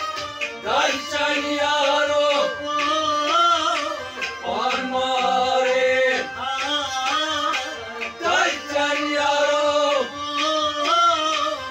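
Harmonium playing a folk melody with drum accompaniment and a second melody line that slides up into its notes, in an instrumental passage between sung lines.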